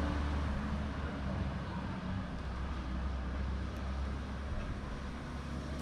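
A van driving away up a street, heard as a steady low rumble with road hiss that fades slightly over the first couple of seconds.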